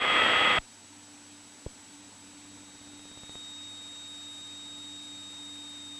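Faint steady electrical hum and thin whine from an aircraft headset intercom, with the engine shut out. A louder radio hiss cuts off abruptly about half a second in, and there is one small click.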